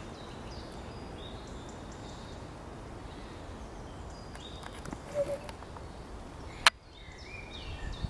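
Outdoor woodland ambience: small birds chirping and calling in short high notes over a steady low background rumble, with a single sharp click near the end.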